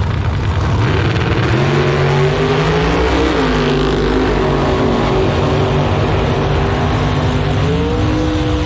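Drag racing pickup and sedan running side by side at full throttle down the strip, engine pitch climbing, stepping down at a gear change about three seconds in, then climbing again near the end.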